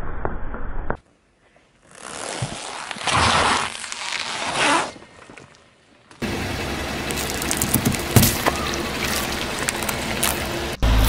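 A car tyre rolling slowly over objects on asphalt, crushing them with crackling and scraping noise and grit under the tread. Short clips are joined with abrupt cuts, and there is a brief near-silent gap about a second in.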